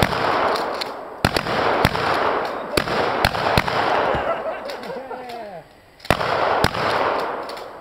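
Shotgun fired repeatedly, about eight shots in quick groups. Each shot is followed by a long echo off the surrounding woods.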